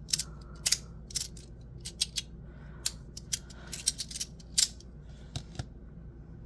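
Sharp, irregular clicks of a 3D-printed sliding magnetic fidget toy as its pieces are slid and snap together, stopping about five and a half seconds in.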